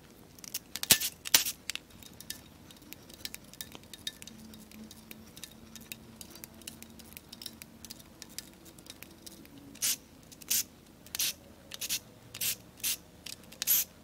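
Metal hand tools clinking and clicking on a Nissan SR20DET's cylinder head during disassembly. There are a couple of sharp clicks about a second in and light scattered ticks, then a run of sharp clicks about two a second from about ten seconds in.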